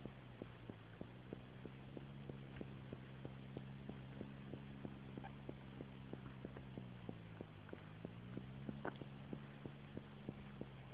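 Tractor diesel engine running steadily under way, with a regular sharp clicking about three to four times a second. The engine note sags briefly about seven seconds in and picks back up.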